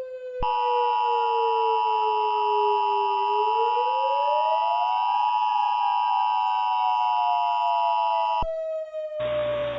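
Emergency Alert System attention signal: a loud, steady two-tone alarm held for about eight seconds, then cut off sharply. Under it a lower siren-like tone slides down, rises, and slowly falls again, and a hiss of static comes in near the end.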